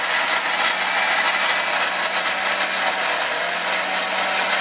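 Jaipan Fruttiea mixer grinder's motor running steadily, grinding ginger and garlic with a little water into a paste in its small stainless-steel jar. The steady whirr carries a faint low hum that shifts slightly about three seconds in.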